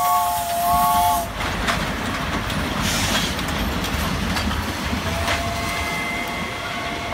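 A Thai Pacific steam locomotive's whistle sounds a steady chord, breaks briefly and cuts off about a second in. The train's carriages then roll past with a low rumble and wheels clacking over the rail joints, and a faint steady tone comes back near the end.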